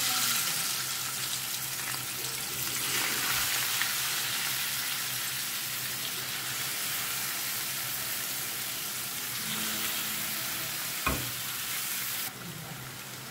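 Marinated chicken pieces sizzling hard in hot oil in a kadai. There is a single knock about eleven seconds in, and the sizzle drops to a quieter level shortly before the end.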